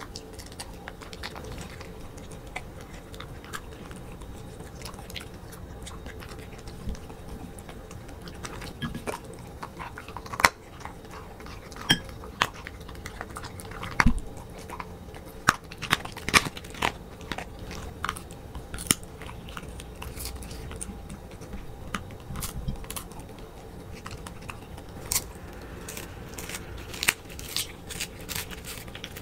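A corgi chewing and crunching raw food, with irregular sharp crunches and clicks of teeth and tongue against a ceramic plate. The crunching comes quicker and denser over the last few seconds as it bites into a capelin.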